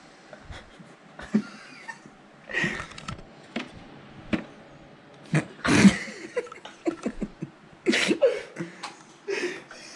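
Stifled laughter: short, breathy bursts of snickering and giggling, loudest about six and eight seconds in.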